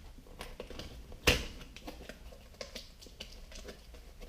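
Scattered light clicks and taps of packaging and parts being handled, with one sharp knock about a second in.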